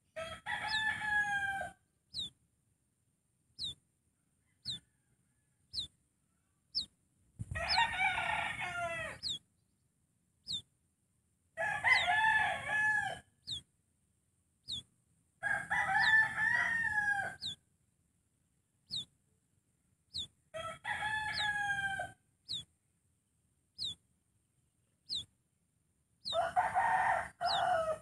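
White-breasted waterhen (ruak-ruak) calling: five loud call bouts of a second and a half to two seconds each, about every four seconds. Short high chirps that drop in pitch come about once a second between the calls.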